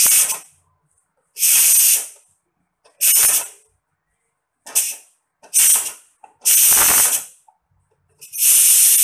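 Cuisinart electric pressure cooker venting steam in about seven loud hissing spurts of varying length, the longest near the end; it is running at strong pressure, a sign it heats and pressurises properly.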